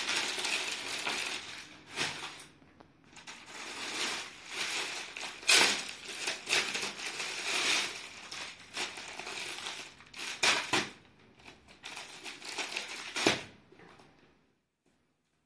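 Crinkling and rustling as an unstitched suit set and its wrapping are handled and unfolded, with a few sharper crackles. The sound dies away about a second before the end.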